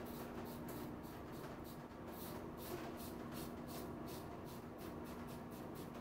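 Razor scraping through a week's stubble over shaving cream in quick short strokes, about three or four a second.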